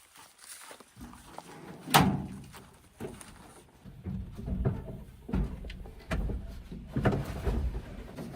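A loud bang about two seconds in, then a run of heavy, dull thumps, typical of a JCB 3DX backhoe loader's bucket knocking and loading mud into a dump truck.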